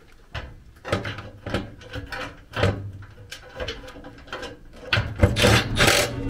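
Cordless drill-driver spinning in several short runs, the longest near the end, driving screws into a furnace's sheet-metal panel to mount a circuit board, among clicks and scrapes of the tool and metal being handled.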